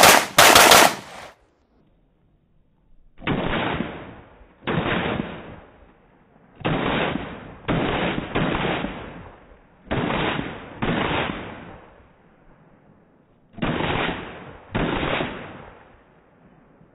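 Semi-automatic pistol fire from a practical-shooting stage. There are two loud shots right at the start, then after a pause of about two seconds, a string of shots in quick clusters separated by gaps of a second or two.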